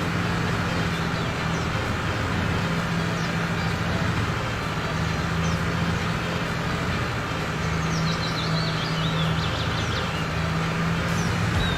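A heavy vehicle engine running steadily with a low hum, with a brief run of high chirps or squeaks about two-thirds of the way through.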